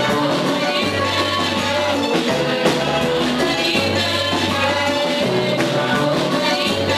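Women's gospel choir singing into microphones over keyboard accompaniment, with sustained bass notes that change every second or so under the voices.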